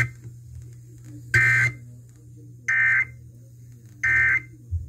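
Emergency Alert System end-of-message data tones: three short, identical bursts of warbling two-tone digital data about a second apart, marking the end of the alert broadcast.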